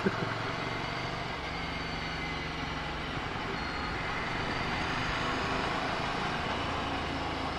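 Ducati Scrambler Sixty2's air-cooled L-twin engine running steadily under way, with a haze of wind and road noise on the onboard microphone.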